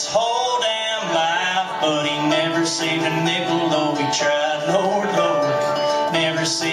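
Live music: a man singing while playing an acoustic guitar, recorded through the Sanyo Xacti VPC-E2 camcorder's built-in stereo microphone, with little bass.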